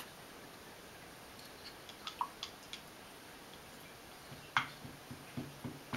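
Small plastic clicks and taps of a child's paintbrush against a plastic water cup as it is rinsed. A few faint clicks come about two seconds in, then a louder tap and a run of taps near the end.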